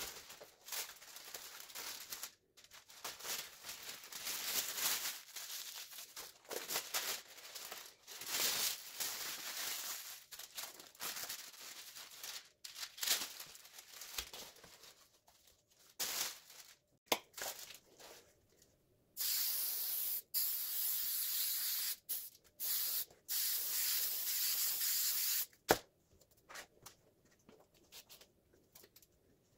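Plastic sheeting and cardboard rustling as they are handled, then a Scotch Super 77 spray adhesive aerosol can spraying in several steady hissing bursts over about six seconds, ending in a sharp click.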